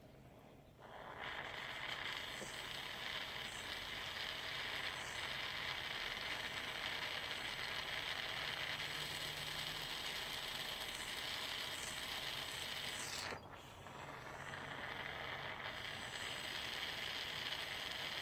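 Jeweller's soldering torch flame hissing steadily as it heats silver. It starts about a second in, breaks off briefly about 13 seconds in, then hisses on.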